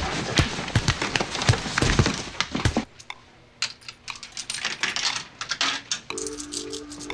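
Scuffling of two people grappling: a quick, dense run of thumps and knocks for about three seconds that stops abruptly. Then scattered small metallic clicks of coins being fed into a vending machine's coin slot.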